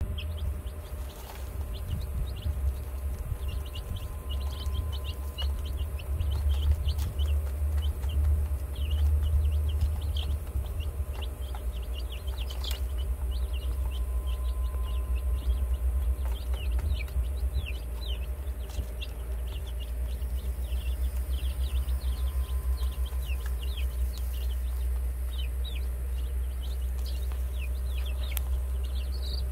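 Easter Egger chicks, three days old, peeping: many short, high, falling peeps scattered throughout, over a steady low rumble.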